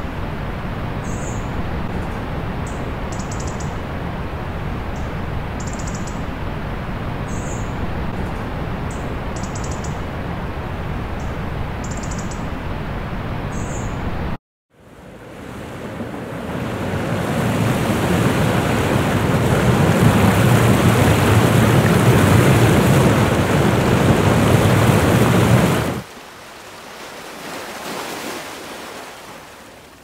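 A waterfall rushes steadily while a small bird chirps high above it, about every second and a half. After a brief cut to silence about halfway through, surf washing onto a beach builds up and stays loud. It drops suddenly about four seconds before the end, with a smaller wave swelling and fading near the end.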